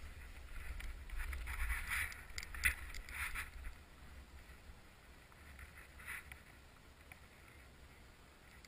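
Wind rumbling on the microphone, with a few short rustling or scraping noises in the first three and a half seconds and one more about six seconds in.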